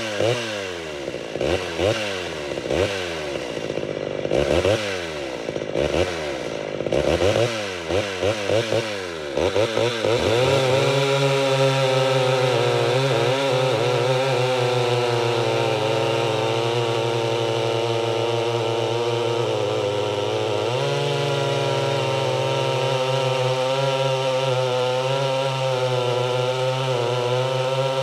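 Ported Homelite Super XL Auto two-stroke chainsaw revved up and down about ten times in quick succession, then held at full throttle and running steadily from about ten seconds in as the chain cuts through a log.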